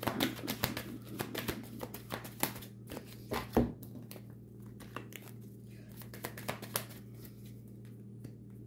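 Tarot cards being shuffled and handled: a run of quick papery clicks and rustles for the first three or four seconds, then only a few scattered taps. A steady low hum lies underneath.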